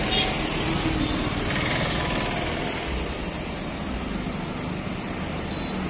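Toyota Corolla Altis's 1.8-litre four-cylinder petrol engine idling steadily, heard with the bonnet open.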